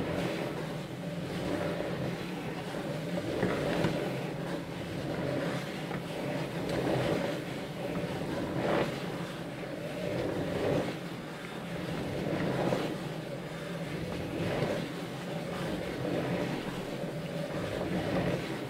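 Spirograph-style drawing machine with wooden gear discs running: a steady mechanical hum and whir from the turning mechanism and pen arm, swelling and easing every couple of seconds.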